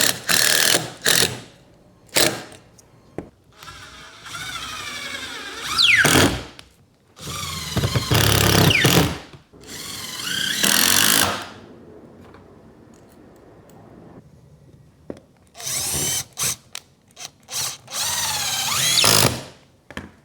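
Power drill driving screws in repeated bursts, its motor pitch rising and falling as it starts and stops. Blocks are being fastened to a bending form for a steamed boat frame.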